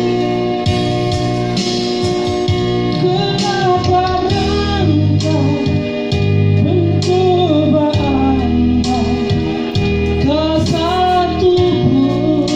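A song: a singing voice carrying a wavering melody over guitar accompaniment.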